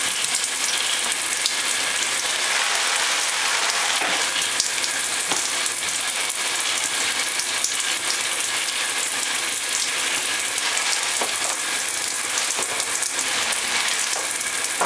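Shower water spraying steadily onto a shower tray and a blue-and-gold macaw bathing in it: an even hiss with light spatters.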